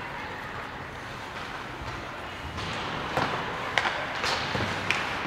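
Ice hockey game play: a steady rink hiss with several sharp clacks in the second half, from sticks, puck and boards.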